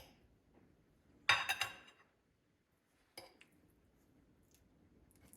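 Cutlery clinking on a plate: a short click, then a louder cluster of clinks about a second in, and one more sharp clink past the middle.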